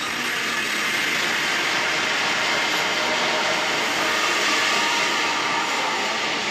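A steady, even rushing noise at a constant level, without speech or music.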